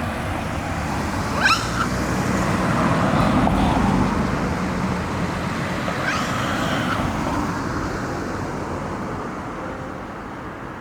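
A vehicle passing on the road, swelling to its loudest about four seconds in and then fading. Over it come two short, high, rising calls from a Japanese macaque, about one and a half and six seconds in.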